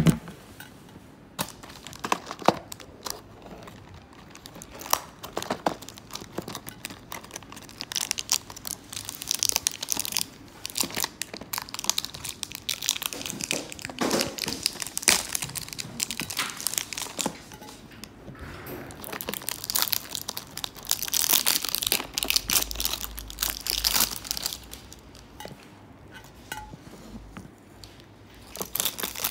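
Snack packaging being handled and opened: plastic wrappers and a printed box crinkling and rustling in irregular bursts, with a few sharp taps and clicks.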